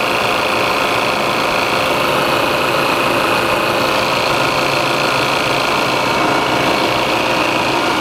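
Refrigerant recovery machine running steadily, its compressor pulling refrigerant out of an air conditioner and pushing it into a recovery tank.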